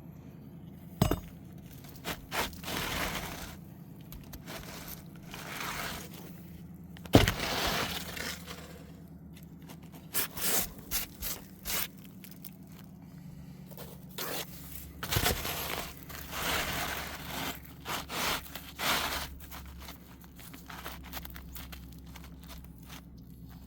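Handling and scraping noises from hands-on repair work, with three sharp knocks, the loudest about seven seconds in, and a faint steady low hum underneath.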